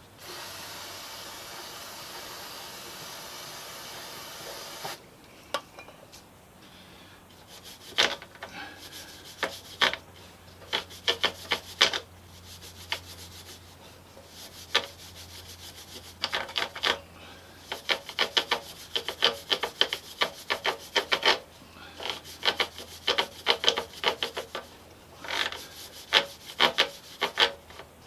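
A spray can hissing steadily for about five seconds, then a brush scrubbing a motorcycle drive chain in quick clusters of rasping strokes to clean off grime.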